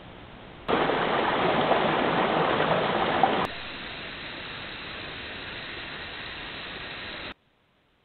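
Steady hiss of trail-camera audio, with no calls or footsteps standing out. It jumps loud just under a second in, with a single click, drops back to a softer hiss a few seconds later, then cuts off to near silence near the end.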